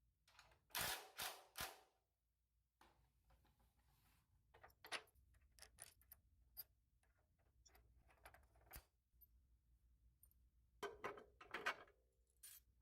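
Sparse light clicks and knocks of parts and tools being handled while a lower control arm is fitted: three close together about a second in, a few faint ticks in the middle, and a short cluster near the end, with near silence between.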